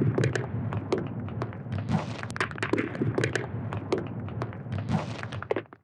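Logo-intro sound effect: a quick, uneven run of sharp taps and dull thuds, several a second, cutting off suddenly near the end.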